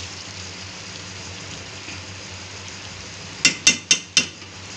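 Vermicelli frying in a steel kadai with a steady sizzle. About three and a half seconds in, a metal spatula knocks against the pan four times in quick succession as it is stirred.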